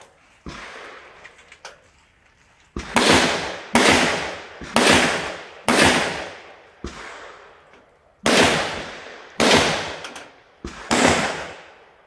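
Gunshots fired on a practical-shooting (IPSC) stage: after a couple of faint pops, about eight loud shots come roughly one a second, starting about three seconds in. Each is a sharp crack followed by a long echo that dies away over most of a second.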